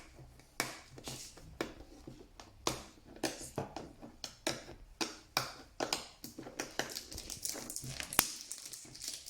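Plastic wrapping of an L.O.L. Surprise package crinkling and crackling in irregular bursts as it is handled and picked at to get it open.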